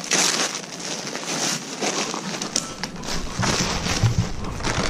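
Plastic bags and packaging crinkling and rustling as parts are handled, in a string of short crackly bursts, with a dull thump about four seconds in.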